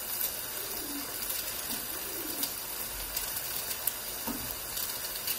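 Beef cubes frying in butter and olive oil in a pot, a steady sizzle, with a few light knocks as thick onion slices are dropped in.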